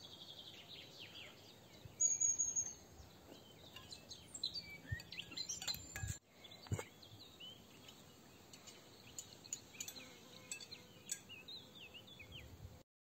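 Garden birds chirping and singing, with a high thin whistled note about two seconds in, and light clinks of cutlery against plates. The sound cuts off just before the end.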